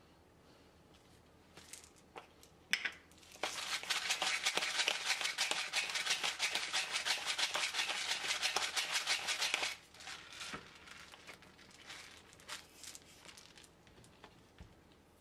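Pepper mill grinding black pepper: a dense, rapid crackle of grinding for about six seconds. It comes after a couple of sharp clicks and trails off into a few scattered ticks.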